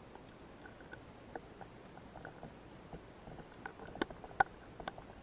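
Underwater sound picked up through a camera housing: a faint hiss with scattered small clicks and taps, and a quick run of sharper, louder clicks about four seconds in.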